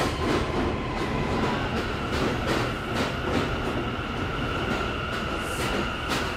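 New York City subway train in motion, its wheels clacking over the rail joints under a steady rumble. A high steady whine from the train steps up in pitch about a second and a half in.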